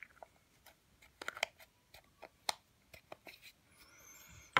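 Scattered light clicks and taps with a brief soft rustle near the end, from a nail-art dotting tool being wiped clean on a paper towel, ending with a sharper click.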